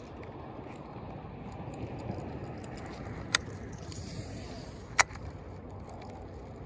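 Two sharp clicks about a second and a half apart, most likely from the angler handling his rod and reel, over a steady low outdoor rumble.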